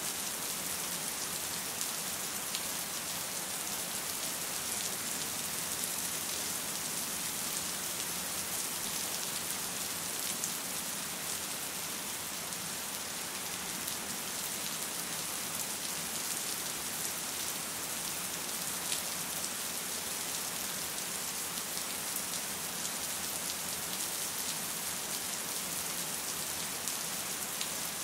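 Steady rain falling, an even hiss of drops with faint scattered ticks.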